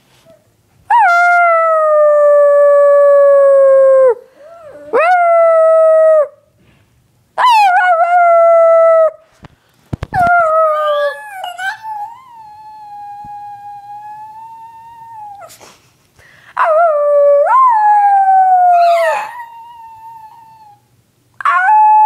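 A dog howling, about six long howls, each one rising sharply at the start and then sliding slowly down in pitch over two to three seconds. A quieter, steadier howl comes near the middle.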